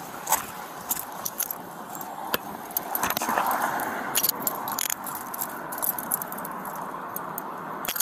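Metal handcuffs being put on a person's wrists: a scattered run of sharp metallic clicks and jingling as the cuffs ratchet shut, with a brief rustle about three seconds in.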